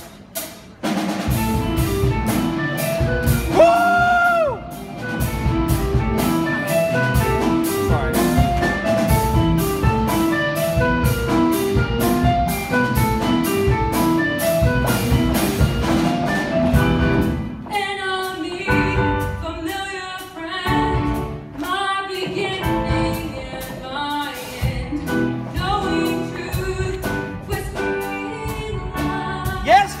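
A show choir's performance begins: instrumental accompaniment with a steady beat starts about a second in, with one long held high note near four seconds. From just past halfway, the choir's voices sing over the music.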